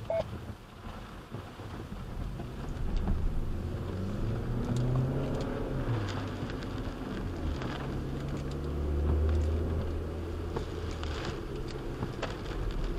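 Car engine pulling away from a stop and picking up speed, its low hum rising in pitch a few seconds in, heard from inside the cabin. Rain is falling on the car and the windshield wipers are sweeping.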